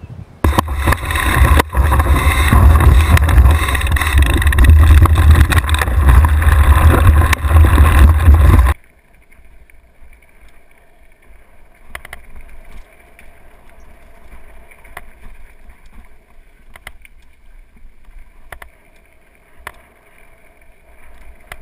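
Onboard camera sound from a mountain bike riding a rough singletrack: loud wind buffeting and rumble on the microphone that cuts off abruptly about nine seconds in, followed by quieter rattling and scattered clicks of the bike on the trail.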